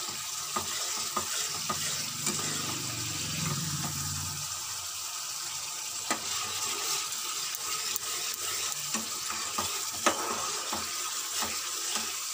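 Masala paste of spices and yogurt sizzling in oil in a pan while a steel spatula stirs and scrapes it, with frequent clicks of the spatula against the pan. The paste is being fried until the oil separates. A low hum underneath fades out about four seconds in.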